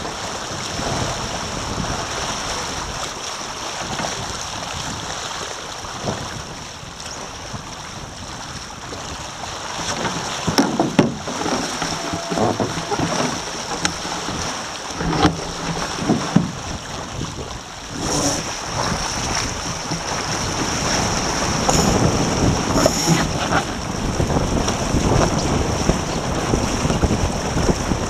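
Wind buffeting the microphone and water rushing along the hulls of a Taipan sailing catamaran under way, with a few short knocks from the boat's rigging and fittings in the second half. The rush grows louder over the last ten seconds.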